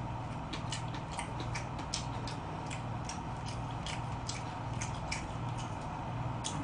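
A person chewing food with the mouth open: irregular wet smacking clicks, a few per second, over a steady low hum.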